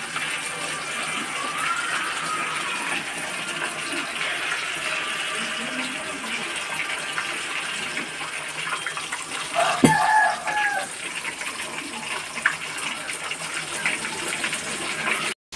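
Steady rushing hiss, with a sharp knock and a short voice-like sound about ten seconds in.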